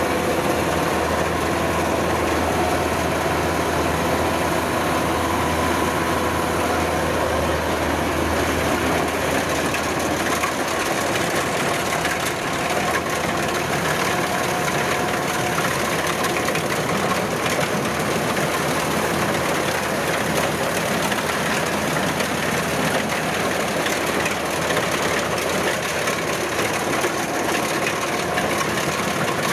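Kubota rice combine harvester running steadily while it cuts through the standing crop: a continuous diesel drone with steady tones above it. The deepest part of the drone weakens about ten seconds in.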